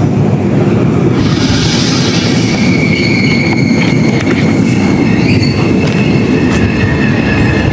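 Small amusement-park ride train running on its narrow track, heard from on board: a loud, steady rumble of wheels on the rails, with a high wheel squeal on the curve from about two seconds in.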